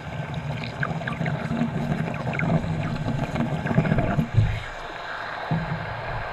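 Exhaled air bubbles from a diver's breathing regulator bubbling underwater in one long exhale that builds and then stops about four and a half seconds in, with faint ticking throughout.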